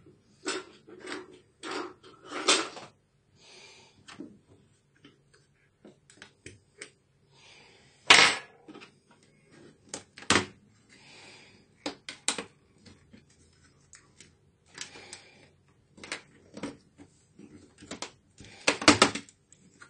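Plastic clips of an HP Mini 110-3100er netbook's palmrest top cover clicking and snapping as the cover is pried loose from the base, with small knocks of plastic handled on the table. The sounds are scattered sharp clicks with gaps between them: a loud snap about eight seconds in and a quick run of clicks near the end.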